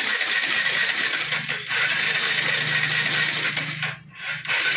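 Bajaj Pulsar NS160's electric starter cranking the engine with a spark plug removed, running steadily with two brief breaks, about one and a half seconds in and near the end. The engine does not fire because there is no spark, which the mechanic suspects is a CDI coil fault.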